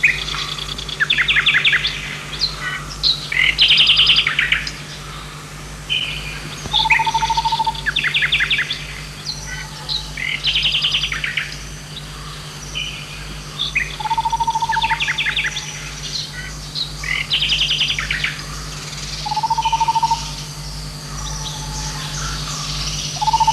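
Forest birds singing: bursts of quick, chattering trilled phrases over and over, with a single level whistled note recurring every few seconds, over a steady low hum.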